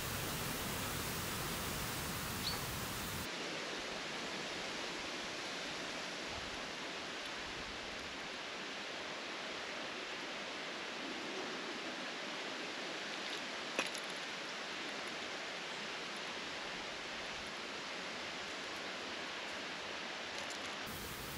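Steady, even background hiss whose tone changes abruptly about three seconds in, with a brief high blip early on and a single sharp click about fourteen seconds in.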